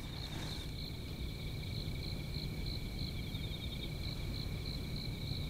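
Crickets chirping steadily in a night ambience: a high trill that pulses about three times a second, over a low background rumble.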